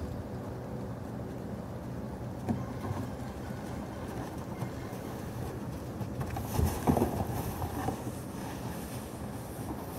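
Blue plastic barrel tipped over and dragged by a rope across the arena dirt: a clattering scrape with a few knocks about two-thirds of the way in, over a steady low rumble.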